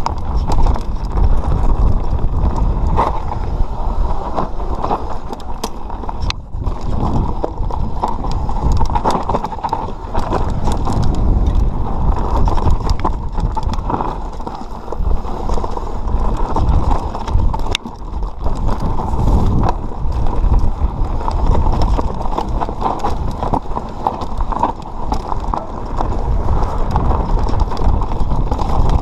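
Mountain bike riding fast down a dirt singletrack: wind buffeting the microphone, tyres rumbling over dirt and stones, and the bike rattling with many sharp knocks over bumps.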